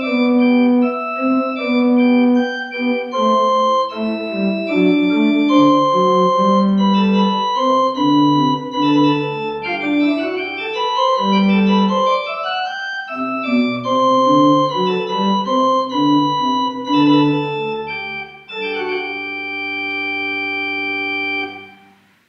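Organ music: a flowing line of sustained notes and chords, ending in a long held chord that dies away just before the end.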